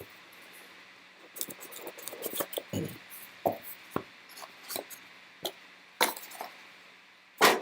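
Hands handling a trading-card box and its packaging: scattered short clicks and rustles, starting about a second in, with a sharper knock near the end.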